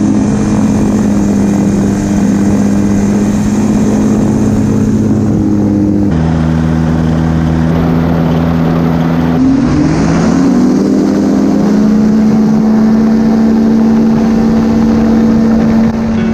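Microlight trike's rear-mounted engine and propeller running steadily while taxiing. The engine note changes abruptly about six seconds in, then rises in pitch around ten seconds in as it revs up and holds there.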